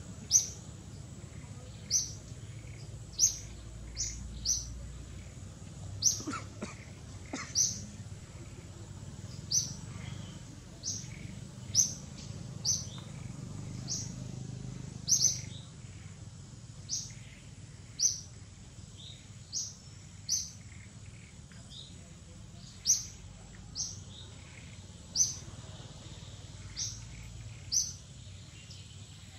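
Bird chirping: short, sharp, high chirps, each a quick downward sweep, repeated about once a second over a faint low rumble of outdoor ambience.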